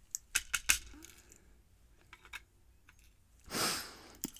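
Small sharp metal clicks as tweezers handle the pins and springs taken from a pin-tumbler lock's core, four or five in quick succession about a second in. A short rush like a breath near the end.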